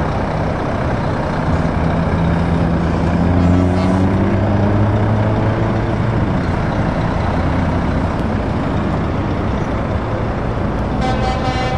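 Diesel engines of heavy lorries pulling away and passing close by; about three seconds in, one engine's pitch climbs as it accelerates. Near the end a horn starts to sound.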